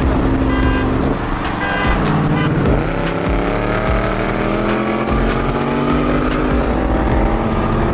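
Muffler-deleted V8 car exhaust, loud. The engine pitch dips briefly, then climbs steadily under hard acceleration from about three seconds in until about six and a half seconds in, where it levels off.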